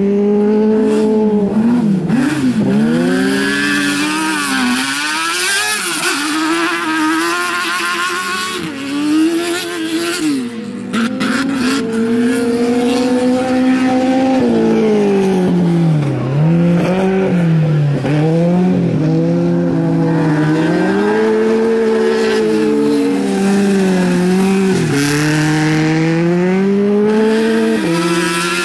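Twin-engine Suzuki-powered autocross buggy at racing speed on dirt. The engine note climbs and falls again and again as it accelerates, shifts and lifts for corners.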